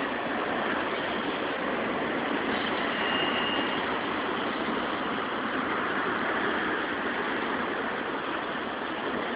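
Union Pacific double-stack intermodal freight train rolling past, a steady rolling noise of steel wheels on the rails from the container cars, with a faint brief high squeal about three seconds in.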